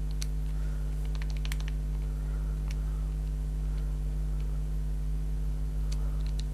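Steady electrical hum, with a few faint light clicks: a short cluster about a second in and a couple more near the end.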